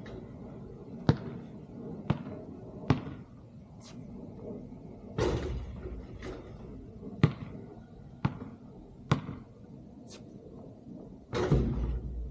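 A basketball bouncing, sharp single bounces about once a second, with two longer, noisier clatters, one about five seconds in and one near the end.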